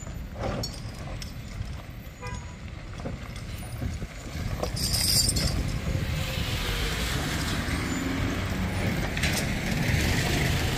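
Road vehicle engine running, growing louder about halfway through, with a brief hiss near the middle.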